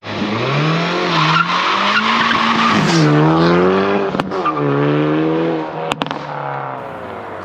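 Car engine revving hard, its pitch rising and falling through the revs, with a couple of sharp cracks about four and six seconds in.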